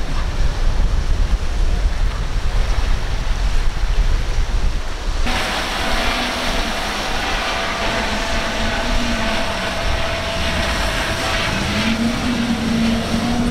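Wind buffeting the microphone over rushing water and the wake of a fast outboard boat. About five seconds in the sound cuts to a brighter spray hiss with a steady engine whine from outboard motors, whose pitch rises near the end.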